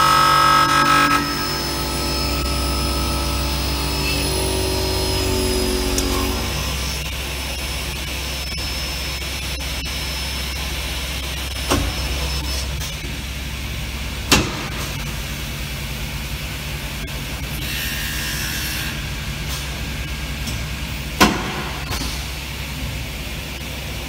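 Multi-spindle drilling and tapping machine working an aluminium profile: motors running with a steady low hum and several tones in the first few seconds, and three sharp knocks spread through the middle and later part.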